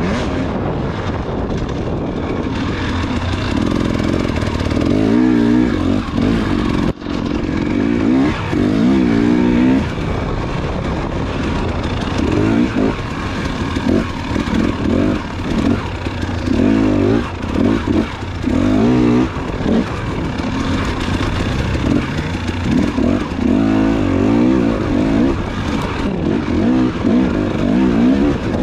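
Off-road dirt bike engine racing over a track, its pitch rising and falling again and again as the throttle is opened and shut through the turns and gear changes. There is a brief drop in the sound about seven seconds in.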